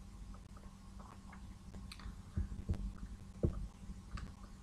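Quiet room tone from a recording setup: a steady faint electrical hum over a low rumble, with a few soft thumps and light clicks in the second half.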